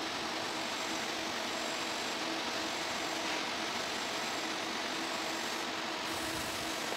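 TIG welding arc on stainless steel: a steady hiss with a faint constant hum, unchanging in level.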